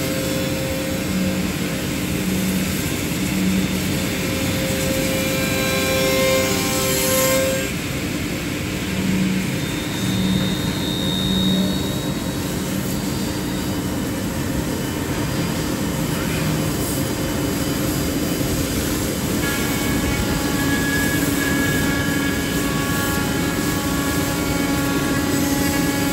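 Router spindles of a four-axis CNC tenoning machine running with a steady whine while cutting tenons in wood blanks. The mix of whining tones changes twice, about a third of the way in and again about three-quarters of the way through.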